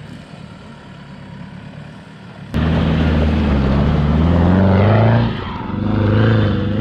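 Land Rover Defender 110's engine driving up a rough gravel track: faint at first, then suddenly loud and close about two and a half seconds in, its pitch climbing slowly, dipping briefly, then climbing again.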